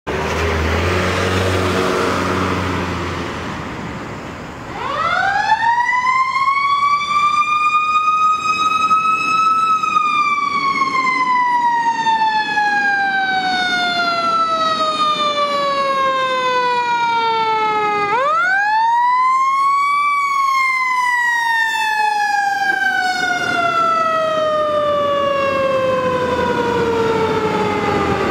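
A fire engine's mechanical siren winds up to a high pitch and slowly winds down. It then winds up again and slowly falls away. Before the siren starts there are a few seconds of truck engine and road noise.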